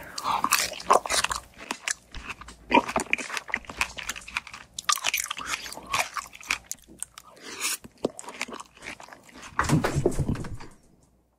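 Close-miked biting and chewing of fresh strawberries with whipped cream: a run of short crunching bites and chewing crackles, with a brief low hum near the end.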